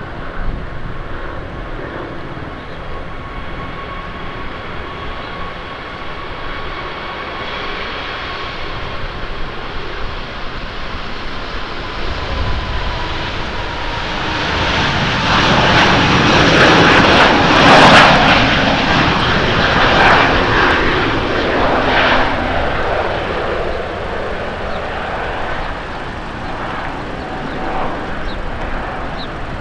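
Jet engines of an ANA Airbus A380-800, its four Rolls-Royce Trent 900s at takeoff thrust as it lifts off and climbs away. A steady whine rides over the engine noise in the first half; the noise swells to its loudest a little past halfway as the jet passes, then eases off.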